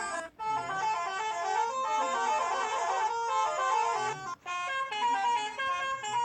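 Bus 'telolet' multi-tone horn playing a quick melody of short stepping notes. It cuts out briefly about a third of a second in and again about four and a half seconds in.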